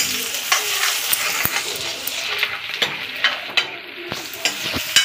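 Chopped onion, capsicum and tomato sizzling in hot oil in a steel kadhai, stirred with a steel ladle that scrapes and clinks against the pan about nine times.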